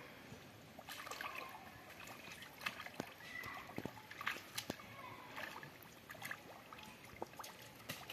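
Shallow muddy water sloshing and splashing as bare hands grope through mud and water for fish, with scattered small splashes and wet clicks.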